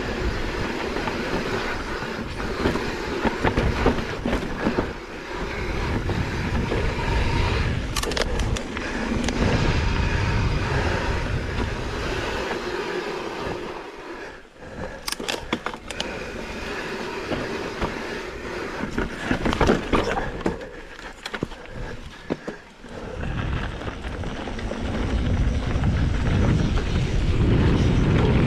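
Mountain bike rolling fast down a dirt trail: steady rolling noise and rattle of the bike over rough ground under a low rumble that swells and dips, with a few sharp clicks and knocks.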